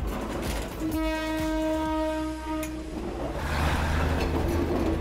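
State Railway of Thailand diesel railcar sounding one long horn blast of about two seconds, starting about a second in. Then its engine and wheels rumble low as it rolls slowly past close by.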